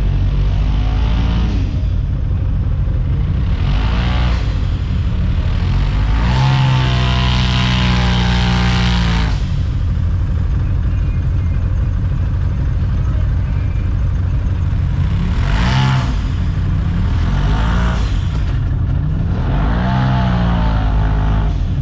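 Side-by-side UTV engine running steadily while crawling, revving up and back down several times, with the longest, highest run of revs about a third of the way in.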